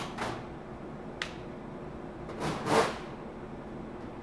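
Handling noises on a sheet-metal workbench as a screwdriver is picked up and an aluminium gas valve body is shifted into position: a sharp click about a second in, then a longer, louder knock and scrape a little past halfway.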